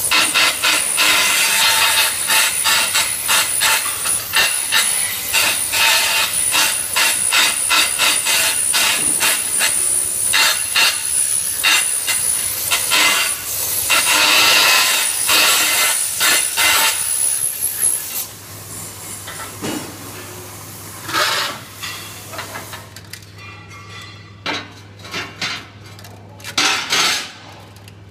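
Flux-cored arc welding: the arc crackles and sputters steadily for about 18 seconds, then stops. Afterwards there are a few scattered knocks over a low steady hum.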